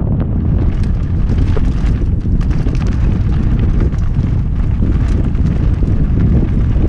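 Heavy wind buffeting the microphone of a camera on a mountain bike descending a rocky, gravelly slope, with scattered clicks and rattles from the tyres and bike over loose stones.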